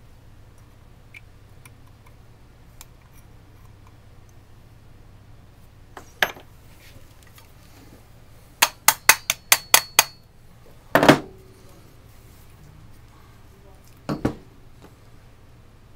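Metal parts of a Remington 870 pump shotgun clicking and clacking against each other during reassembly. A few light ticks come first. About eight seconds in there is a quick run of about seven sharp clicks, then a louder clack, and a double knock near the end.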